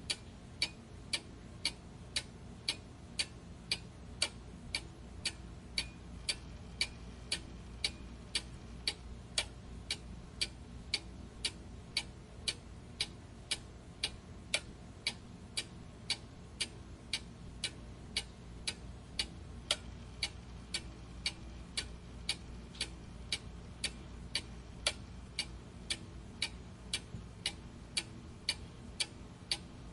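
A clock ticking steadily, about two evenly spaced ticks a second.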